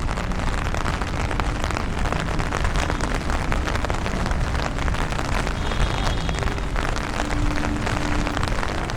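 Steady heavy rain pattering down, with vehicle traffic running underneath.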